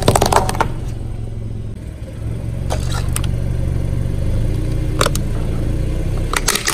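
A car engine idling steadily as the car creeps forward on concrete. A burst of crackling comes at the start, and a few sharp plastic clicks and cracks come near the end as the tyre presses onto a plastic toy.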